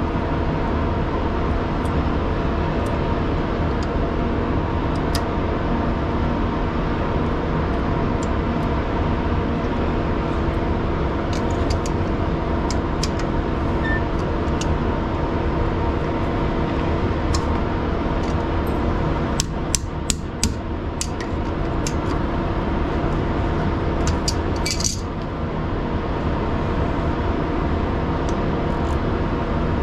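Scattered metal clicks and taps of hand tools working on a trailer brake's slack adjuster and its pins, with a short cluster of louder clicks about two-thirds of the way through. Under them runs a steady mechanical hum.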